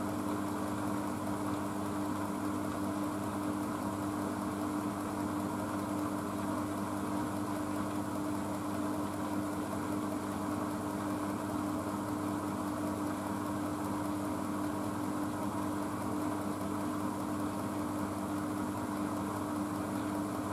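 Blomberg WNF9448 washing machine spinning its drum of bedding at a low 300 rpm in the first part of its final spin: a steady motor hum that holds one pitch.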